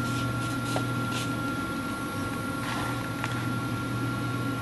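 A steady low hum with a thin, steady high tone over it. A few faint light clicks come from the brass clock movement as its parts are handled.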